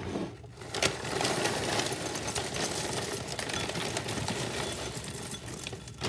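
Plastic cereal-bag liner crinkling as it is handled and tipped, with Cinnamon Toast Crunch pieces rattling into a ceramic bowl toward the end; a dense, rapid run of small clicks and rustling.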